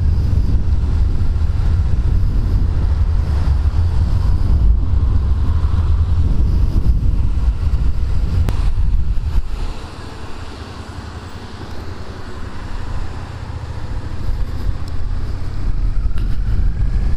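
Riding a Suzuki SVF650 Gladius on wet roads, heard through a microphone inside the helmet: heavy wind rumble over the V-twin engine and tyres on the wet road. It drops to a quieter stretch about ten seconds in, then builds up again near the end.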